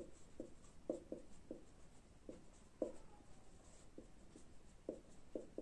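Black marker pen writing on a whiteboard: a faint run of short, irregular squeaks and scratches as the felt tip forms the letters.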